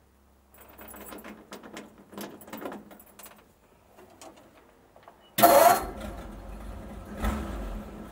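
Keys jangling and clicking in the ignition for a few seconds. About five seconds in, the 1941 Ford pickup's flathead V8 starts suddenly and keeps running, heard from inside the cab.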